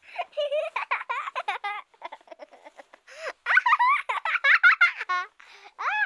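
A young child's voice, giggling and babbling in short high-pitched bursts, louder in the second half.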